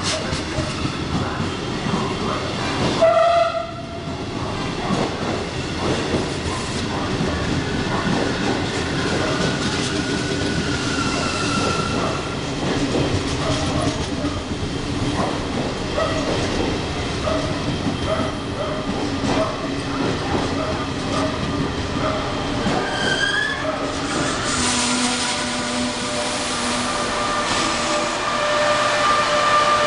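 Regio Express train hauled by an FS Class E.464 electric locomotive rolling past along the platform: continuous wheel clatter and rumble on the rails. A brief loud tone sounds about three seconds in, and high squealing tones set in about two-thirds of the way through.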